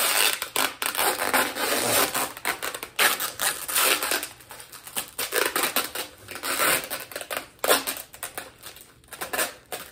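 Crinkly plastic and paper packaging being handled and squeezed while packing tape is wound around it, with irregular rustles and scrapes.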